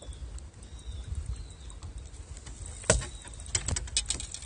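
Low rumble of wind and water around an open boat while a fish is fought on rod and line. About three seconds in comes one sharp knock, followed by a quick run of clicks.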